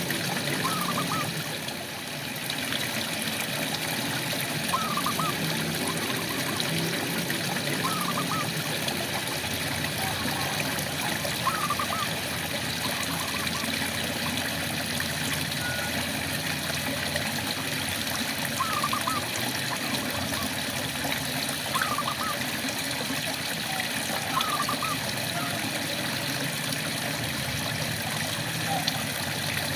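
Steady rain with trickling, dripping water, and frogs calling now and then, in short rising calls a few seconds apart.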